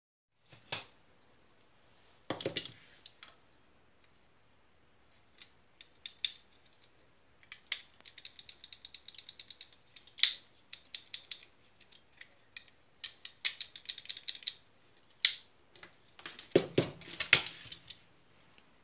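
Clicks, knocks and rattles of disassembled airsoft machine-gun parts being picked up and handled on a table: the receiver and trigger frame knock and slide against each other. A quick run of small clicks comes about eight seconds in, and the loudest cluster of knocks comes near the end.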